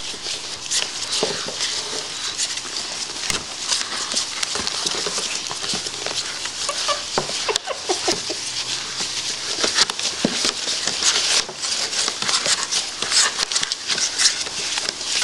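Seventeen-day-old Shih Tzu puppies scuffling and scratching about as they play, a steady crackle of small scrapes and ticks. There are a few short squeaks or grunts around the middle.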